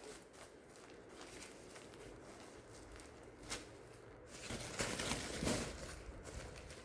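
Packaging being handled and rustled, with a sharp click about halfway through and a louder spell of crinkling rustle a little later.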